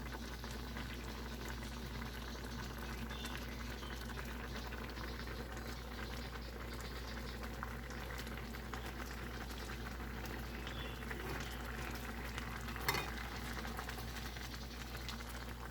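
Pot of rice porridge bubbling steadily at the boil, with one short clatter near the end.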